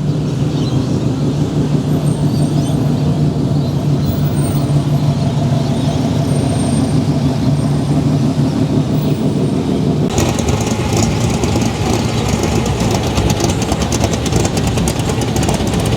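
Car engine running with a steady low drone. About ten seconds in, a harsher, crackly noise with much more high-end comes in over it and carries on.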